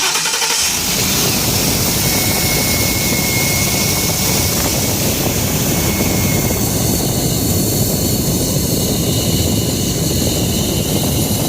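2012 Ford E-150 van's V8 engine running at idle with a steady, loud rushing hiss over it: a vacuum leak at the newly fitted Dorman aftermarket intake manifold.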